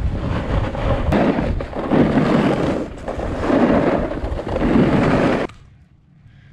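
Wind rushing over the camera's microphone, mixed with the scrape of snowboard and ski edges on packed snow during a fast downhill run. The noise swells and eases roughly once a second and cuts off suddenly about five and a half seconds in.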